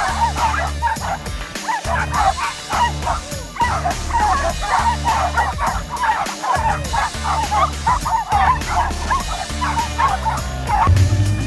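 A pack of small dogs barking and yipping in quick, overlapping yaps, over background music with a steady bass.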